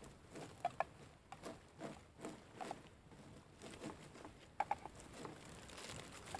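Faint, irregular scratching and crackling of a knife sawing through a crusty loaf of bread on paper, with a spoon scraping in a pot.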